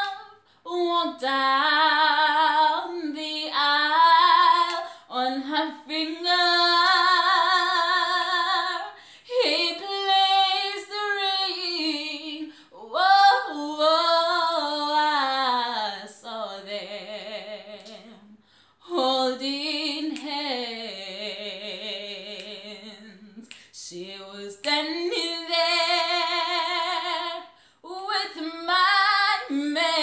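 A woman singing solo with no accompaniment, in long held phrases with a wavering vibrato and short breaks for breath between them.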